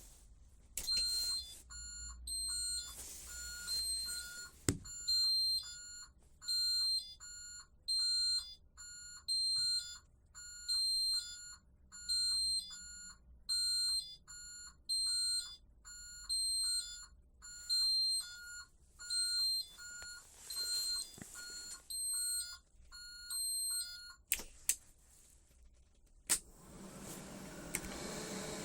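Electric car's warning chime, beeping about once a second for over twenty seconds. Then two sharp clicks, and a steady fan-like whirr starts near the end.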